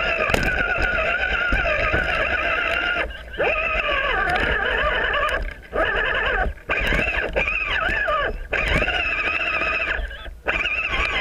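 RC rock crawler's electric motor and gearbox whining, the pitch rising and falling with the throttle and cutting out briefly about five times as the throttle is let off.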